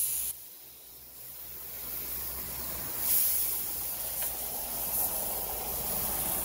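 Compressed air hissing from a paint spray gun as its trigger is pulled to test the spray while the air pressure is set. One burst stops just after the start, and a second, longer one begins about three seconds in.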